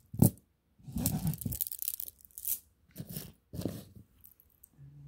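Jewellery being handled: a sharp click, then several short bursts of rustling and clattering as a stone-bead stretch necklace is moved about and set aside.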